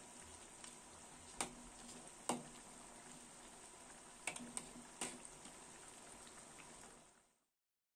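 Chicken stew simmering faintly in a wok on low heat as its broth reduces, with a perforated metal spatula clinking against the wok several times while stirring. The sound fades out near the end.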